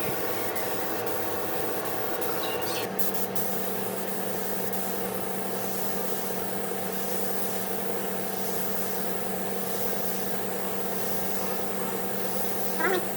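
Power sander running steadily on wood: a motor hum under an abrasive rushing. The hum shifts about three seconds in, and a short squeak comes near the end.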